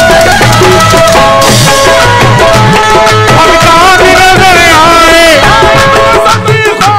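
Qawwali music between sung lines: tabla drumming under held, steady harmonium notes. About four seconds in, a voice slides through a wavering melodic run for a second or so.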